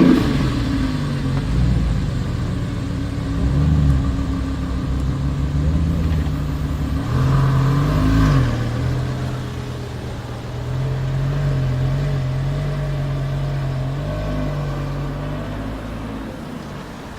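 Sports car engine just after start-up, its flare dying away into idle, with two short throttle blips about four and eight seconds in, then idling steadily.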